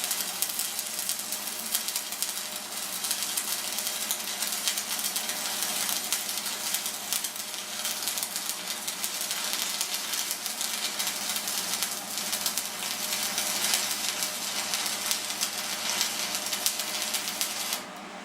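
Stick-welding arc from a 6013 electrode at about 115 amps: a steady crackling sizzle as the rod lays a bead, running with little drag. The arc breaks off abruptly near the end.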